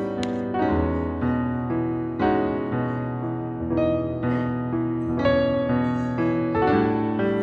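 Background piano music: a melody over held chords, with the notes changing about every half second.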